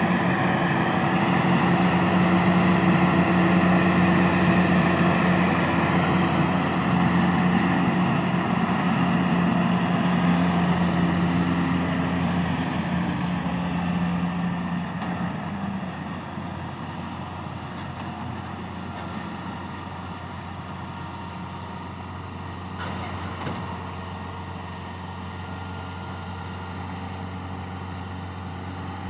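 Kubota DC70 combine harvester's diesel engine running steadily, with a constant engine tone; about halfway through it grows quieter and then stays at a lower, even hum.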